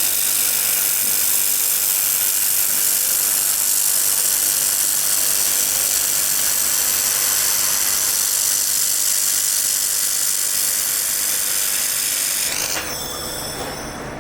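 Laser welding machine running: a loud, steady high-pitched hiss with faint whining tones. Near the end the sound shifts to a lower, thinner hiss.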